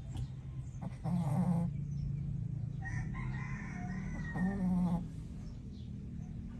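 A sleeping pet snoring: a steady low rumble, with two squeaky, wavering whistles on the breaths, about a second in and again from about three to five seconds.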